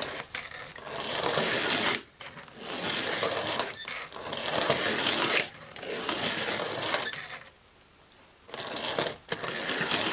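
Tri-ang Railways toy locomotive's electric motor and freshly greased worm gear whirring as it runs on the track. The sound comes in bursts of a second or two and dies away briefly about three-quarters through.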